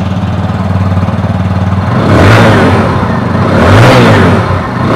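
TVS Apache RTR 160 2V's 159.7 cc single-cylinder engine idling through its stock exhaust, then revved twice, about two seconds in and again near four seconds, each rev rising and dropping back to idle.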